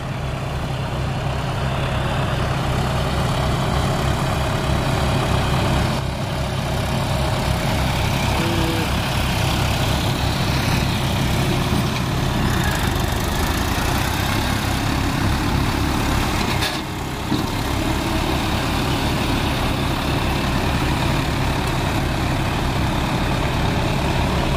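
Diesel tractor engines running steadily under load as the tractors work an implement through a flooded, muddy paddy field, with a brief dip in the sound about two-thirds of the way through.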